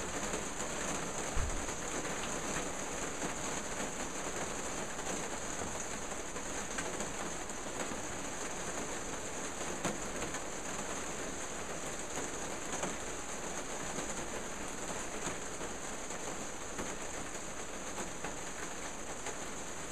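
Steady rushing background noise with a strong high hiss and scattered faint ticks, with one brief low knock about a second and a half in.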